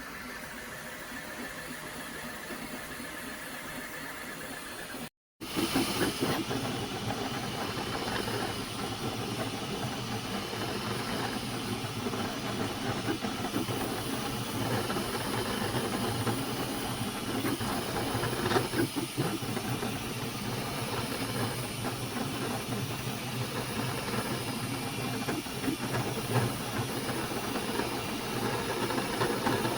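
Flashforge Adventurer 5M 3D printer running a print: a steady hiss from its cooling fans over a low motor hum. The sound drops out for an instant about five seconds in, then carries on a little louder.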